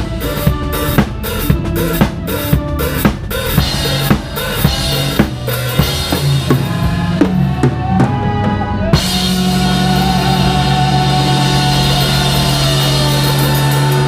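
Live band playing with a close-miked drum kit loud in front, kick and snare keeping a steady beat of about two hits a second. About nine seconds in the drums stop and the band holds one long chord.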